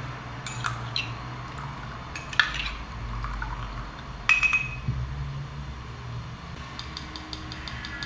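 A metal spoon clinking against a ceramic cup: a few sharp taps, the loudest about two and a half seconds in and just past four seconds with a brief ring, then a run of quick light ticks near the end as it stirs. A steady low hum runs underneath.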